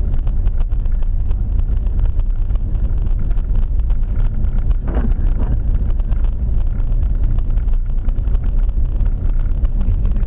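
A vehicle on the move: a loud, steady low rumble of road and engine noise, with wind buffeting the microphone.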